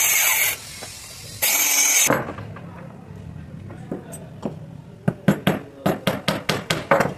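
A handheld electric woodworking tool runs on wood in two short bursts, one right at the start and one about a second and a half in. From about five seconds in, a claw hammer strikes nails into a wooden frame with about ten quick blows.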